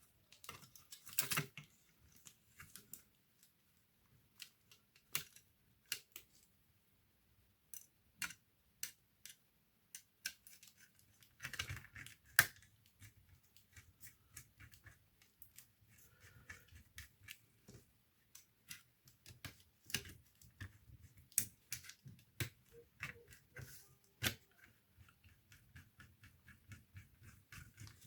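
Irregular small clicks, taps and knocks of plastic and metal laptop parts and tools being handled during disassembly work on an HP 630 notebook, with busier clattering about a second in and again near the middle.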